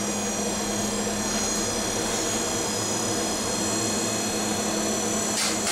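Steady machine drone in a forge workshop: a constant rushing noise with a low hum and several steady high whines, like a blower or extraction fan running. About five seconds in comes a brief noisy scrape.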